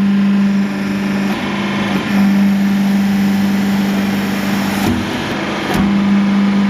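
Wire mesh production machinery running: a loud steady hum that breaks off twice and comes back, with a sharp clunk at the breaks, over a constant mechanical clatter.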